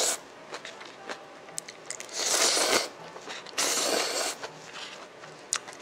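A person slurping instant ramyeon noodles: two long slurps, about two and three and a half seconds in, each lasting most of a second, with small clicking mouth sounds between them.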